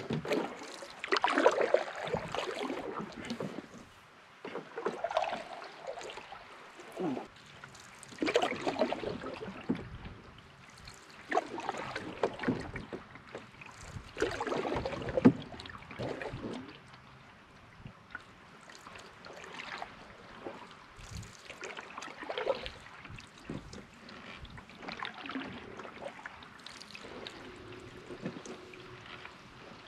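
Canoe paddle strokes in calm lake water: a swish and splash about every three to four seconds, softer in the last third.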